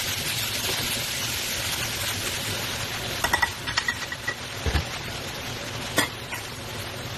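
Pork and vegetables sizzling in a hot stone-coated wok, with a quick run of metal clinks and a short ring about three seconds in as a small metal measuring cup knocks against the pan, then a dull knock and one more click.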